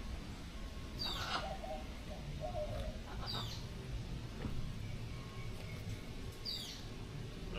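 Captive tropical birds calling: a high call that falls in pitch, repeated three times a couple of seconds apart, with lower warbling notes between.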